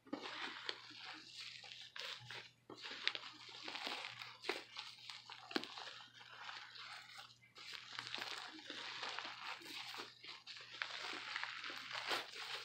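Fluffy shaving-cream slime being squeezed and kneaded by hand: a quiet run of crackles and small clicking pops that comes and goes.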